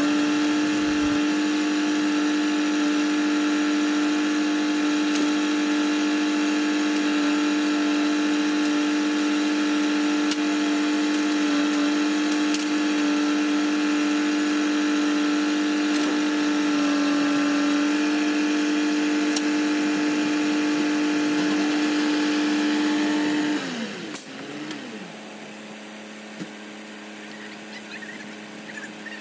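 Diesel engine of a knuckleboom log loader running at steady high revs while the loader works, then throttling down to a lower idle about 24 seconds in.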